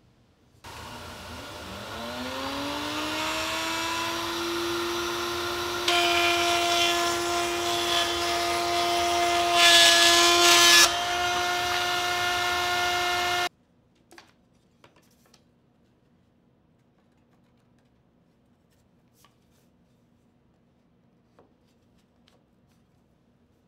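Router in a router table spinning up with a rising whine and settling to a steady high speed. About six seconds in, the bit starts cutting red oak as a piece is pushed through, louder and noisier, and loudest for about a second around ten seconds in. The sound then cuts off suddenly, and a few light taps of wood follow.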